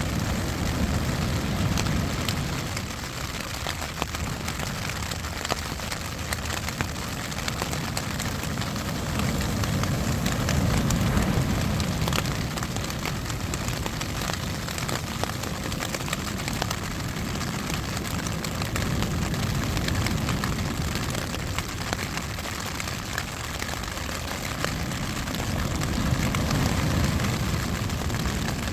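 Steady rain pattering on tent fabric, a dense hiss full of fine drop ticks. Under it, a low rumble of ocean surf swells and fades every eight to ten seconds.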